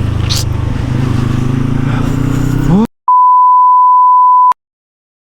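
Yamaha R25 V2 motorcycle's parallel-twin engine running, its pitch rising briefly before the sound cuts off abruptly. Then a single steady high beep tone lasts about a second and a half, followed by silence.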